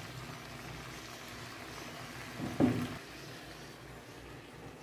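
Alugbati greens, carrots and shrimps sizzling steadily in a nonstick wok, with one brief clink of a glass pot lid about two and a half seconds in.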